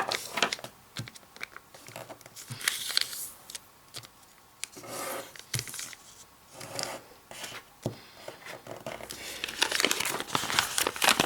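Sheet of origami paper being folded by hand: irregular crinkling rustles and sharp crease snaps, busiest near the end.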